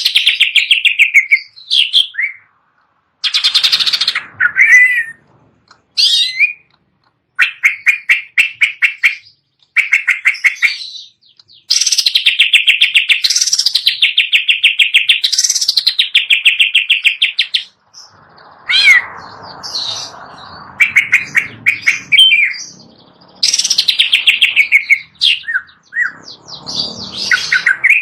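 Cucak ijo (green leafbird) singing loud phrases of fast trills and swooping whistles, separated by short pauses, with a rougher, harsher stretch partway through.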